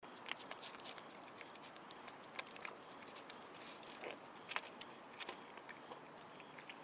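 A kitten eating wet cat food from a plastic tray: faint, irregular clicks of chewing and mouth sounds, thinning out near the end.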